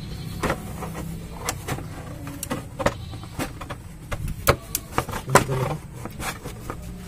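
Irregular metallic clicks and clanks from tools and parts being worked loose in a truck's engine bay while the radiator is removed, over a low steady hum; the two loudest knocks come a little after the middle.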